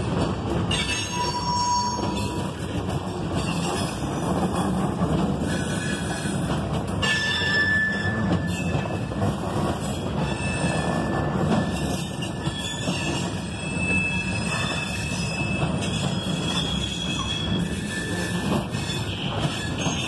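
Freight train of ballast hopper cars rolling past, a steady rumble of steel wheels on rail. Brief high squeals from the wheels come and go every few seconds.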